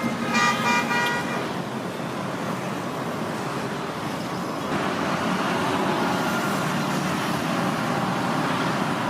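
Road traffic with a vehicle horn sounding a few short honks at the start, then steady traffic noise that gets louder about halfway through.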